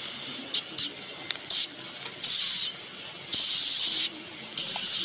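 A series of hisses: a few short ones and three longer ones, each about half a second long.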